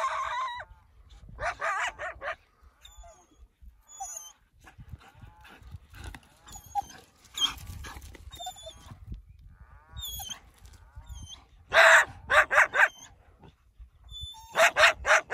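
Coyotes and working dogs barking and yipping at each other in loud short volleys, with quieter yips and whines between. The loudest run of barks comes about twelve seconds in, with another quick series near the end.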